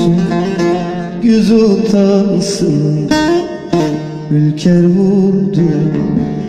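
A Turkish song: a man singing a melody over plucked string accompaniment.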